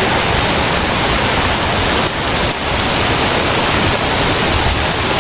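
Heavy storm rain pouring down, a loud, steady, dense hiss.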